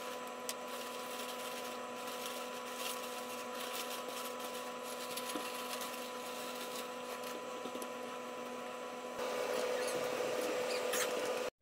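Pork and vegetables sizzling in a wok over a gas burner while noodles are poured in from a crinkling plastic bag, over a steady hum. About nine seconds in the sizzling turns louder as the noodles are stirred in the wok.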